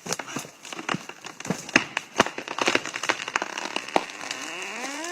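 Wooden tree trunk cracking and splintering in many irregular sharp snaps as it is felled with hammers and wedges. A rising tone sweeps upward near the end.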